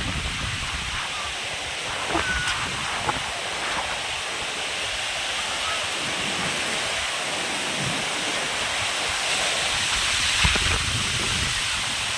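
Heavy rain pouring steadily, a dense even hiss, growing a little louder about ten seconds in.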